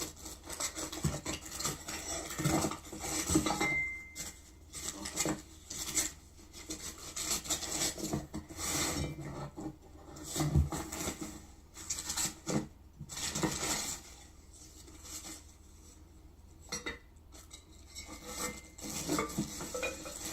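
Corinthian Bells wind chime being unpacked from its box: irregular rustling and scraping of packaging with small knocks and clinks of the chime's parts, and only one brief ring, about four seconds in.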